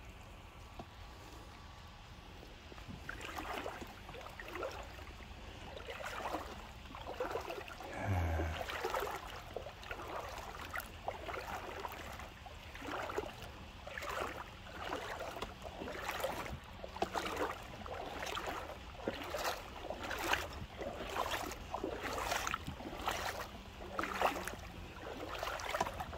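Footsteps wading through shallow seawater: a swishing splash about once a second, starting about three seconds in, with one brief low thump about eight seconds in.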